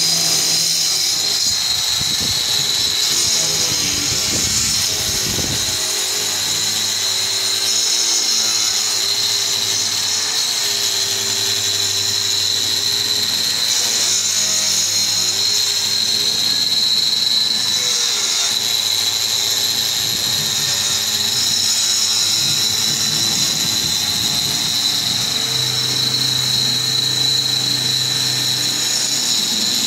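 Hand-held electric angle grinder cutting a groove into a masonry block wall for electrical conduit, running continuously with a steady high whine.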